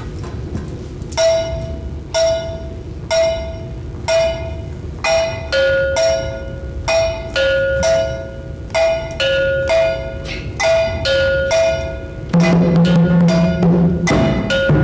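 A two-tone bell is struck, about once a second at first, then faster, alternating between a high and a low note. About twelve seconds in, the group of hand drums comes in loudly with fast, dense drumming.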